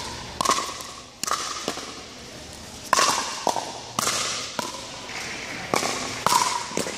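Pickleball paddles striking the hollow plastic ball in a rally: about ten sharp pops at uneven intervals over several seconds, each ringing briefly and echoing in the hall.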